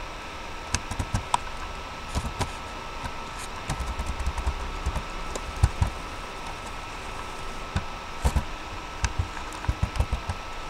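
Irregular clicks and taps of a computer keyboard and mouse, over a steady hiss with a faint high whine.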